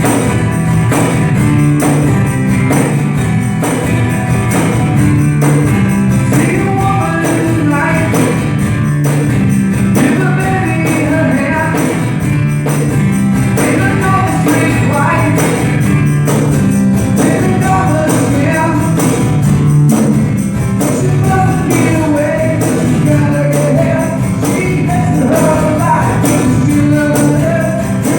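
A small band playing a song with a steady beat: percussion on every beat, a bass line and a melody over it.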